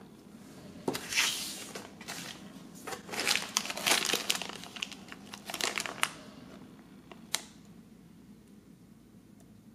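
Clear plastic bag crinkling as it is handled, in bursts through the first six seconds or so, with one sharp crackle a little after seven seconds.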